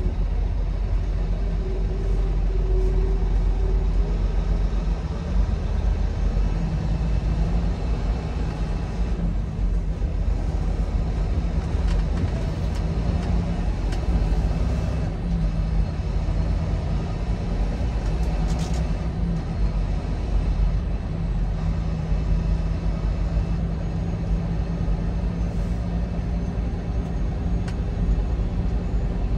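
Semi-truck running on the road: a steady low engine and road rumble, with an even engine hum that sets in about seven seconds in.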